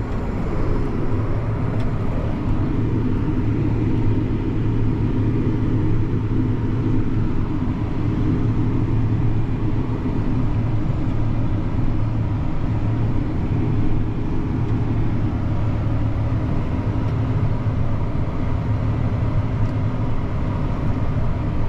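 Diesel engine of harvest machinery running steadily under working load, a constant low drone with a deep hum.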